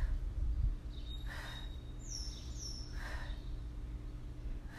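A woman's breathing as she does crunches: a short exhale about every two seconds, with a steady low hum beneath.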